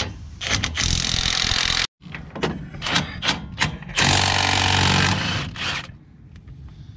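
Milwaukee M18 cordless impact wrench hammering on bolts held with thread locker, breaking them loose. There are two loud bursts of about a second each, the first near the start and the second about four seconds in, with a few clicks and knocks between them.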